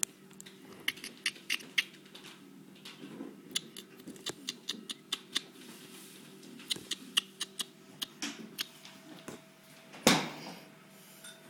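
Baby marmoset giving a string of short, high-pitched squeaks and clicks, with a louder rustle against the fur about ten seconds in.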